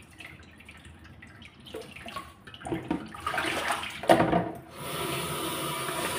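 Water splashing and dripping as spinach leaves are rinsed in a stainless steel colander over a plastic bowl in a sink, getting louder about halfway through. A sharp metal knock comes about four seconds in.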